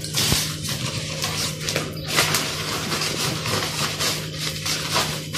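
Papers and the contents of a handbag rustling and being handled as they are rummaged through, with small irregular clicks and crinkles, over a steady low hum.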